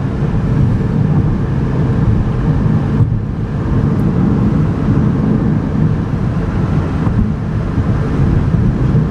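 Inside the cabin of a 2011 Chevy Equinox with a 2.4-litre four-cylinder, cruising steadily at highway speed: continuous low road and tyre rumble mixed with engine and wind noise.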